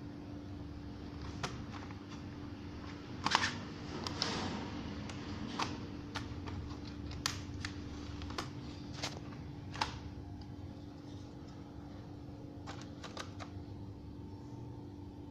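Scattered, irregular clicks and light taps of small plastic parts, typical of hands working on an ASUS X453M laptop as it is taken apart. The loudest is a short cluster about three seconds in. A steady low hum runs under them.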